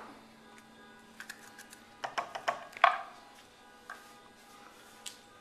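Scattered light clicks and taps of a kitchen utensil on a cutting board as jalapeño halves are seeded, bunched about two to three seconds in with one sharper knock, then a few single ticks.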